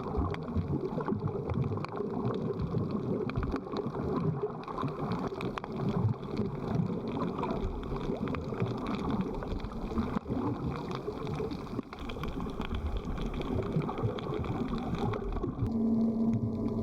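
Steady rushing water and wind noise. A steady low hum comes in near the end.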